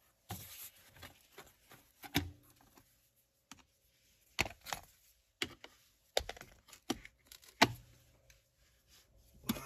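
Plastic interior trim panel of a car's dash being pried loose and handled: a dozen or so irregular sharp clicks and knocks of clips and plastic, the loudest about two seconds in and again near three-quarters of the way through.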